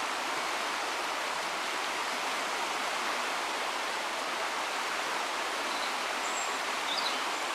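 Shallow river running over a stony bed: a steady, even rush of flowing water.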